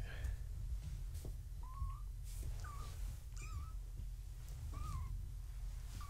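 Three-week-old kittens mewing: four or five short, high, wavering cries a second or so apart.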